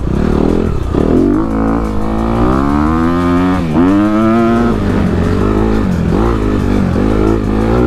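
Honda CRF250RX single-cylinder four-stroke dirt bike engine under hard throttle, ridden fast. The pitch climbs steadily, drops sharply at a shift about four seconds in, climbs again, then dips and rises several times as the throttle is rolled off and back on.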